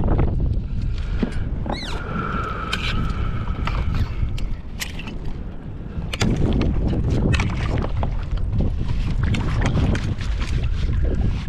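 Wind rumbling on the microphone, with water slapping and splashing around a kayak. A brief sound rises in pitch about two seconds in.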